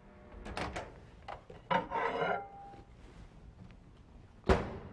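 A microwave oven door is opened with clicks and a clunk, followed by a plate being scraped out across the oven floor. There is a sharp knock about four and a half seconds in.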